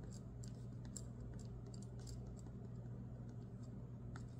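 Pen writing on a planner page: faint, irregular scratches and light ticks of the tip on the paper, over a steady low hum.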